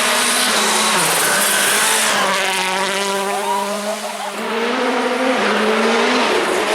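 Rally car engine running at high revs, its pitch dropping in abrupt steps with several gear changes as the car passes by.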